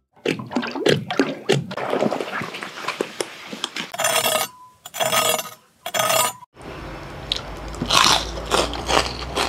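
Crackling crunch of crispy fried pork skin: a knife cutting through crisp pork belly crackling, then loud crunchy bites and chewing of pork rinds about eight seconds in.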